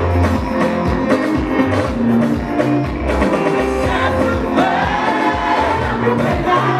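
Live gospel music: a group of singers singing together into microphones over an amplified band with a steady beat.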